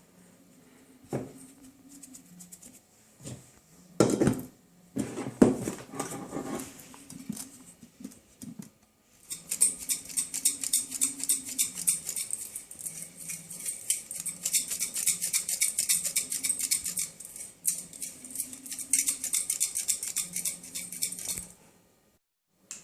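Dry shredded tobacco and ground cloves being stirred together in a small pot. A few scattered knocks and rustles come first, then from about nine seconds in a dense, rapid, scratchy rustling runs for some twelve seconds and stops abruptly near the end.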